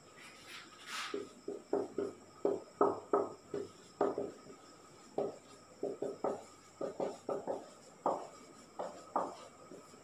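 Marker pen writing on a whiteboard: an irregular run of short strokes, about two or three a second, one for each stroke of the letters.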